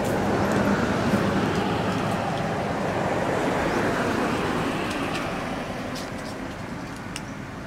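A motor vehicle's engine and road noise passing by, fading steadily as it moves away, with a few faint clicks near the end.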